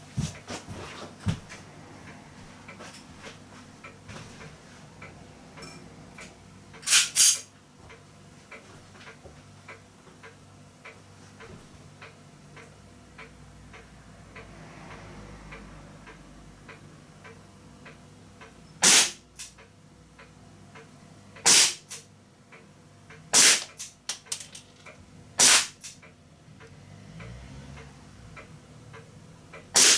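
Remington 1911 RAC CO2 BB pistol firing, each shot a sharp crack: a close pair about a quarter of the way in, then single shots every two or three seconds in the second half. Faint small ticks between the shots.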